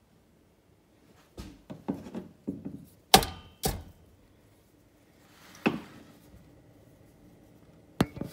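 Irregular clicks and knocks of hard objects being handled: a quick run starting about a second and a half in, the two loudest just after three seconds, then single knocks near six and eight seconds.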